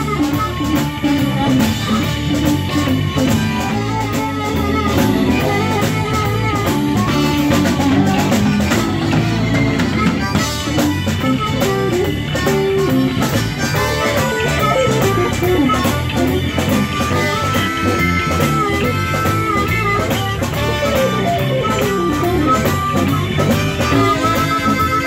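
Live blues band playing: amplified harmonica played through a vocal microphone over electric guitar, bass guitar and a drum kit.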